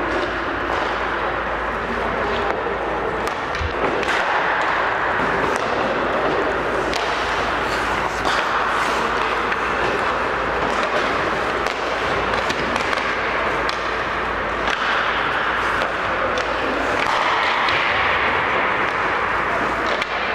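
Ice hockey rink at practice: skate blades scraping the ice under a steady noise, with scattered sharp clacks of sticks and pucks and a constant low rumble beneath.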